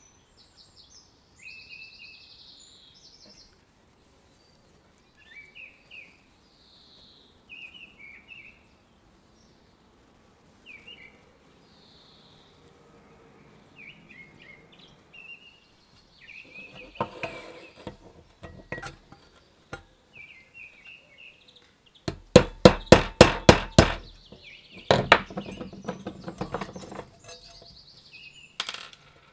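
Metal parts of a rusty butter churn's crank and gear mechanism clinking and rattling as they are handled and taken apart, with a quick run of sharp clicks, about four a second, about three quarters of the way through. Birds chirp faintly in the background.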